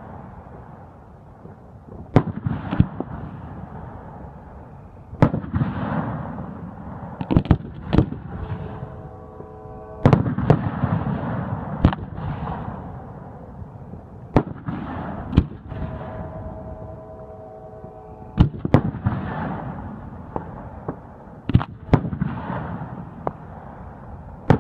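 Aerial firework shells launching and bursting: about a dozen sharp reports at irregular intervals, each followed by a lingering echo.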